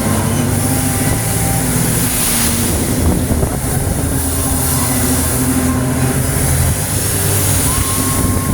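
Amusement ride machinery running with a steady low mechanical hum that shifts slightly in pitch.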